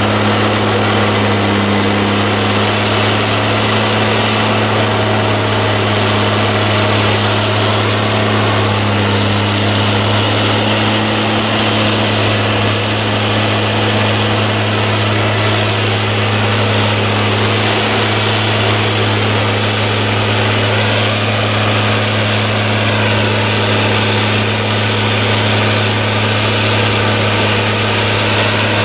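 Heavy diesel engine running steadily at low revs, a deep even hum that holds without change.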